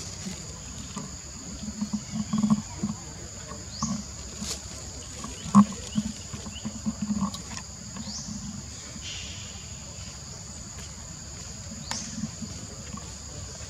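Monkeys giving short, low grunting calls in two bunches, one a couple of seconds in and one around the middle, the loudest just after the middle, over a steady high-pitched hum.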